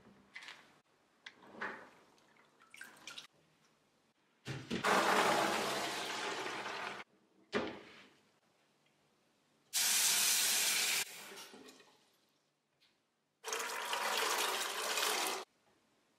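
Water pouring and running in a stainless-steel kitchen sink in three bursts of about two seconds each, each stopping abruptly, as overnight-soaked chickpeas are drained and rinsed. A few small splashes and knocks of handling come before the first burst.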